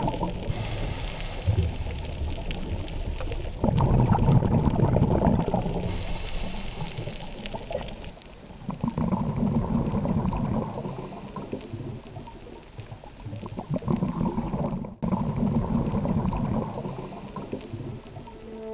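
Rushing, bubbling water with a low rumble, coming in surges that each swell and fade over a few seconds, with a sudden break about three quarters of the way through.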